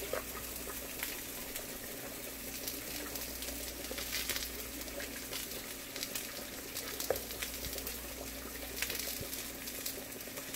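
Battered catfish frying in hot grease: a steady sizzle with small crackles and a few sharper pops.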